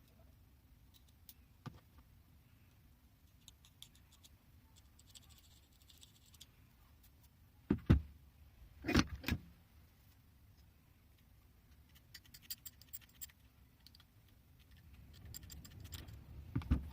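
Metal adjustable spanners being handled and set down on a workbench: scattered light metallic clinks, with two heavier knocks about eight and nine seconds in and another near the end.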